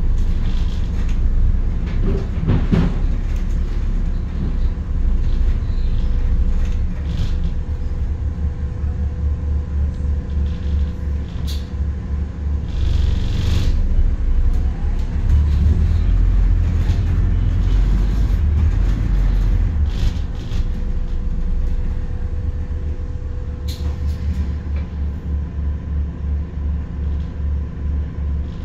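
Bus running along the road: a steady engine and road rumble with a pulsing low throb and scattered short clicks and rattles.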